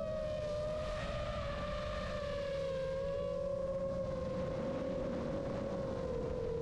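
Brushless motors and 7-inch propellers of an iFlight Chimera 7 Pro FPV quadcopter whining in flight, the pitch easing slowly downward, over a low rumble of wind on the onboard camera.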